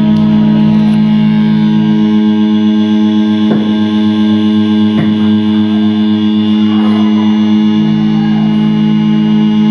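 Loud, steady amplified drone from a live experimental music set: layered sustained tones with a distorted, noisy edge, broken only by two sharp clicks around the middle.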